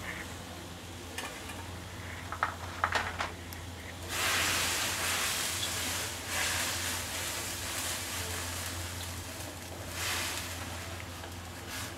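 Egg noodles being stirred with wooden chopsticks in a wok of boiling water. A few clicks of the chopsticks against the wok come about two to three seconds in, then a loud rush of bubbling water from about four seconds, which eases and swells again, over a steady low hum.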